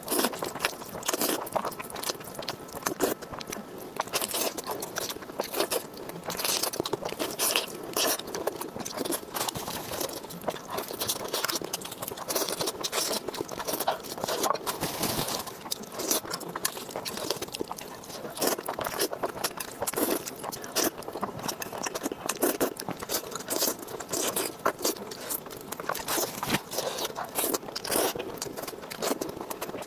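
Close-miked eating: a person biting and chewing crunchy food, giving a dense, irregular run of crisp crunches and crackles.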